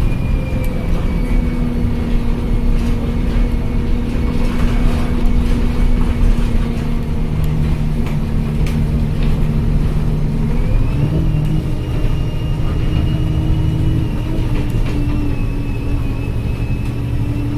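Alexander Dennis Enviro200 single-deck bus heard from inside the cabin while under way: a steady engine note with a thin high whine over it. About ten seconds in, both step up sharply in pitch and then hold at the higher pitch.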